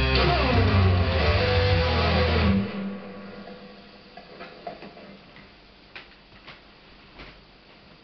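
Electric guitar playing loud final notes that slide down in pitch, cut off about two and a half seconds in. Then only faint scattered clicks and knocks of the guitar being handled and set down.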